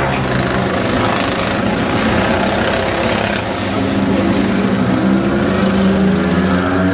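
Engines of several racing go-karts running on the circuit, their pitch rising and falling as the drivers work the throttle through the corners.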